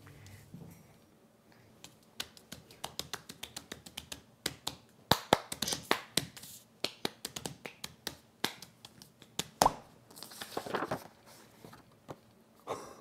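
Sheets of paper being handled and folded by hand: a fast run of sharp crackles and clicks, starting about two seconds in, then a brief rustle.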